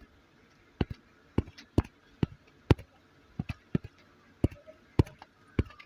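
About a dozen sharp, irregularly spaced taps of fingertips on a mobile phone's touchscreen, typing a search into the phone's keyboard.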